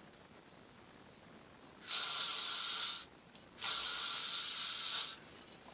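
Aerosol hairspray can spraying in two bursts, the first about a second long and the second about a second and a half, a steady hiss each time.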